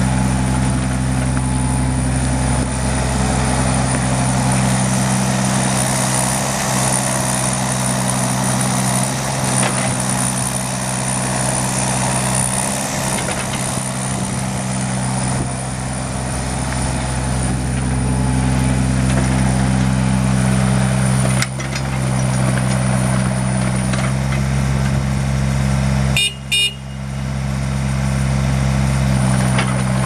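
Case CX36 mini excavator's diesel engine running at a steady speed. It drops out briefly twice, about two thirds through and again near the end.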